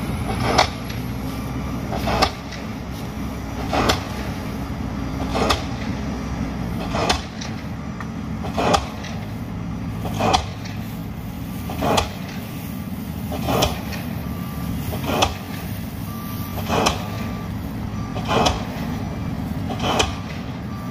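Pile driver hammering concrete ground piles: a sharp strike about every 1.6 seconds, evenly paced. Beneath it is the steady low running of heavy machinery engines, excavators and trucks.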